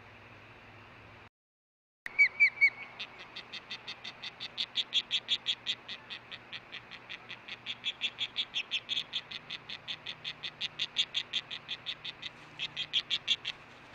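Female osprey calling: three loud, sharp chirps, then a long rapid series of pulsed notes at about five a second, the buzzing-type call.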